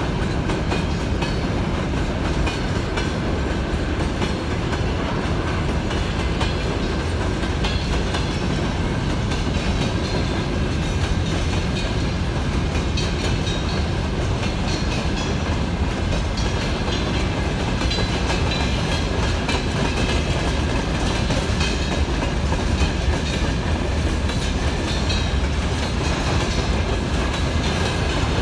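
Freight train of covered hopper wagons rolling past at close range: a steady rumble of steel wheels on rail with clicks as the wheels cross the rail joints.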